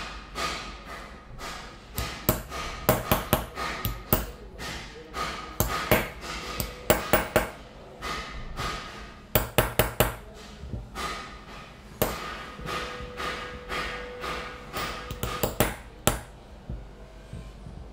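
Small chasing hammer tapping a steel chasing tool against a silver cane cap, working its relief pattern: quick, irregular clusters of light metallic taps with a faint ring. The tapping stops near the end.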